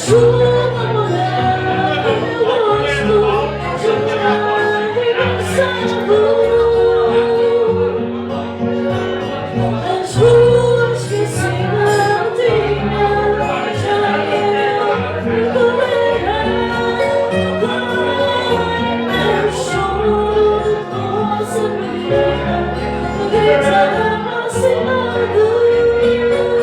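Fado music: a woman singing long, held melodic lines over instrumental accompaniment.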